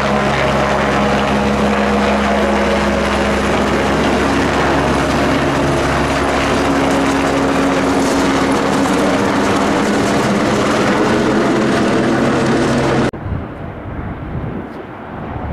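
Helicopter flying low overhead with an underslung load: a loud, steady rotor and engine sound with a low hum. About 13 seconds in it drops abruptly to a much quieter, duller sound.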